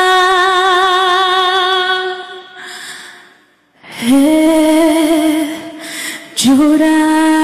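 A woman singing solo into a microphone, holding long notes with vibrato. She pauses briefly twice between notes: a longer, nearly silent gap about three seconds in and a short one around six seconds in.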